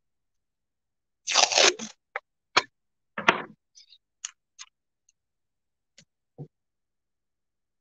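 Masking tape pulled off the roll with a short crackling rip, followed by several sharp clicks and lighter taps as it is handled and pressed down, and a soft thump near the end.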